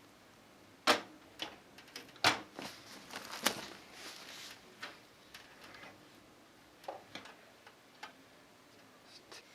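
Irregular clicks and knocks of a PC power supply being handled and set into the computer case, the sharpest about a second in and twice more over the next few seconds, then fainter taps.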